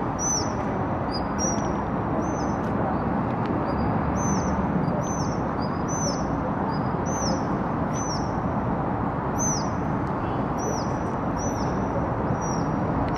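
Eurasian otter giving a run of shrill, high-pitched shrieks, each a short call dropping in pitch, repeated about once or twice a second with a few brief pauses: a mother otter's contact calls keeping her cubs in line. Underneath runs a steady rumble of city traffic.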